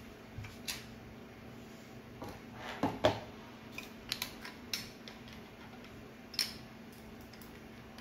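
Hands handling a plastic microwave control-panel housing and small tools on a table: scattered light clicks and knocks, with the loudest clatter about three seconds in.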